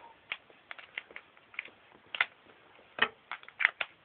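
Plastic parts of a Build Your Own Sonic Screwdriver toy being handled and fitted together: a string of small clicks and taps, the sharpest bunched together near the end.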